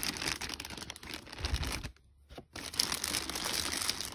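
Clear plastic bag around a robot vacuum crinkling as it is handled in its cardboard box, with a dull bump about a second and a half in and a short pause just after.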